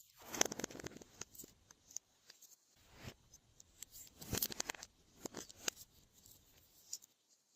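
Glossy slime being worked by hand, giving irregular sticky clicks and crackles, loudest about half a second in and again around four seconds in.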